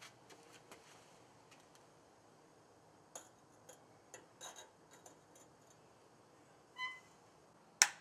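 Faint clinks as a clay-graphite crucible is set down into an electric melting furnace, then a short beep and, near the end, a sharp click as the furnace's rocker power switch is flipped on.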